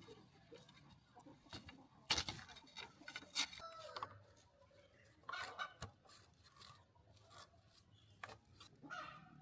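Intermittent scraping and rubbing with a few sharp clicks, and a couple of short chicken calls, one falling in pitch about three and a half seconds in.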